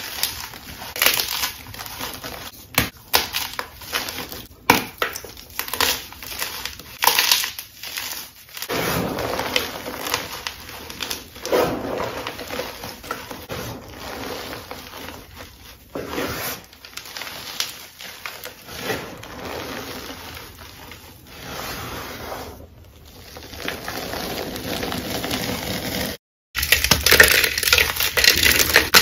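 Hands crushing and crumbling soft gym chalk blocks into powder: a dense run of crunches and crackles, easing into softer powdery crumbling in the middle. After a brief break near the end comes louder, crisper crunching of another chalk block.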